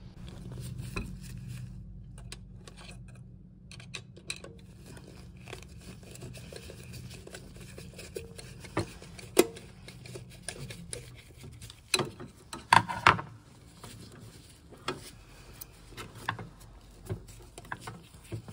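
Scattered small clicks, scrapes and rustles of gloved hands stripping the cable cores and working the wires into a plastic screw-terminal block, with a cluster of sharper clicks about two-thirds of the way in. A low hum runs underneath and stops about eleven seconds in.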